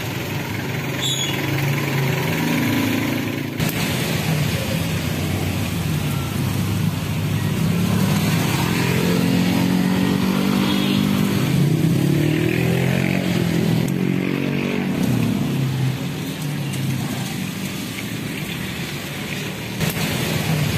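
Street traffic: a motor vehicle engine running close by, its pitch rising and falling through the middle, over steady road noise.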